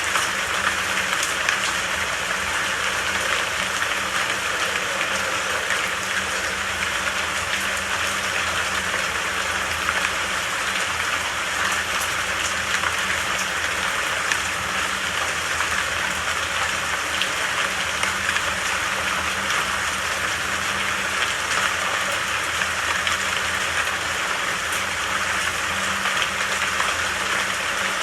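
Steady rain falling, a constant even hiss with fine scattered patter of drops.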